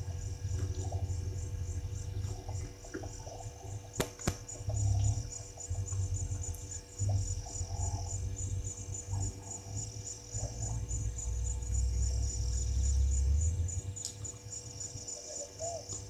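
Gusty wind rumble on the microphone over a steady, rapidly pulsing insect chorus, with a few faint animal calls and a sharp click about four seconds in.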